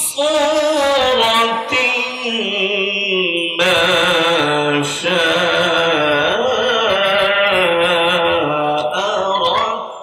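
A man reciting the Quran in the melodic tilawat style, with long held notes that waver and ornament in pitch, a short break for breath a few seconds in. The phrase fades out near the end.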